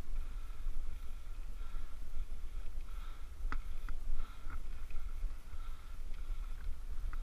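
Steady low rumble of wind buffeting a bicycle-mounted camera's microphone, with a faint steady hum higher up and a couple of sharp clicks about three and a half seconds in.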